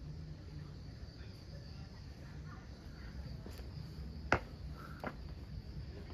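Insects trilling steadily in a continuous high-pitched drone over a low rumble. A sharp click comes a little past four seconds in, and a fainter one about a second later.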